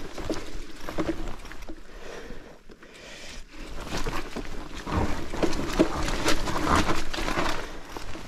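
Mountain bike rattling and crunching down rough forest ground, with irregular knocks and rustles that grow busier and louder from about four seconds in.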